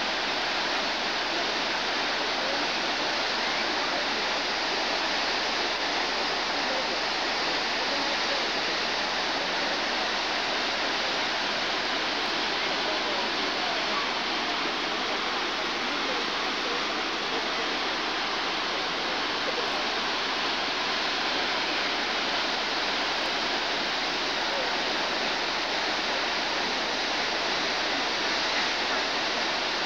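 Tall waterfall's steady rush of falling water, an even hiss with no breaks.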